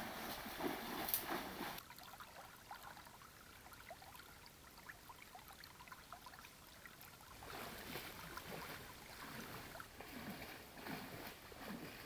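Water splashing as a person wades through a shallow stream, with a sharp splash about a second in. The water goes quieter for several seconds, with small scattered drips and ticks, then the splashing returns in the last few seconds.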